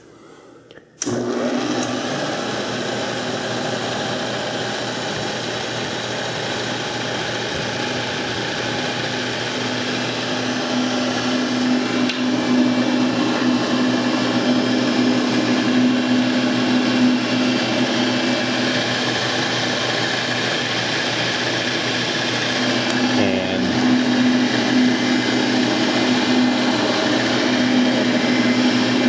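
South Bend drill press switched on about a second in, then its motor and spindle run steadily on freshly installed bearings, a steady hum with a hiss of belt noise. The belts squeaking are the noisiest part. The sound briefly wavers about three-quarters of the way through.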